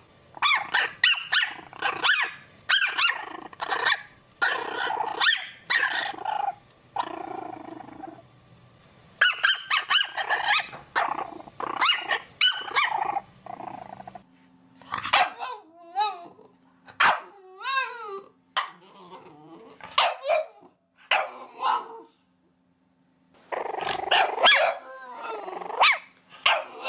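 Puppies barking: rapid high-pitched yaps overlapping for about fourteen seconds. Then sliding, pitch-bending puppy whines and yips over a steady low hum, a brief silence, and more yapping with whines near the end.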